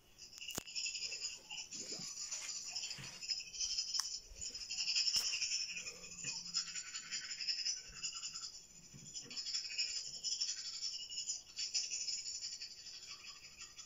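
Scratchy brushing or scrubbing noise in uneven, repeated strokes, swelling and fading, with a few sharp clicks.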